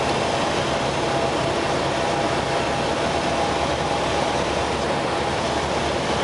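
Steady drone of a high-wing light training aircraft's piston engine and propeller, with rushing airflow, heard inside the cabin on the landing approach.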